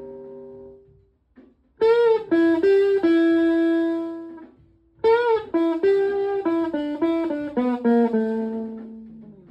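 Electric guitar through a Tone Bender MKII germanium fuzz pedal with Mullard OC81D transistors into a Fender Twin Reverb–style amp, playing two short single-note phrases with string bends. A brief pause falls between them, and the second phrase steps down to a held low note that fades.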